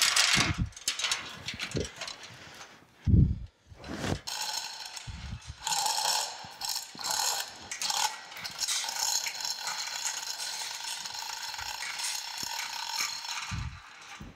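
Chain hoist on a gantry crane being worked by hand, its chain rattling and clicking through the hoist steadily for most of the second half. Earlier come a few heavy thuds, the loudest about three seconds in, as the cast-iron forge is set down on the sawhorses.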